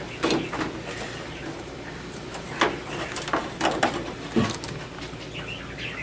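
Scattered clicks and knocks of plastic parts being handled and pressed into the power-cord opening on a flat-screen TV's rear panel, with a duller thump about four and a half seconds in.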